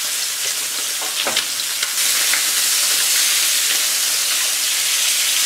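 Skin-on salmon fillets sizzling in oil in a nonstick frying pan as they sear flesh side down, a steady hiss with a few faint clicks about a second in. The sizzle gets louder about two seconds in.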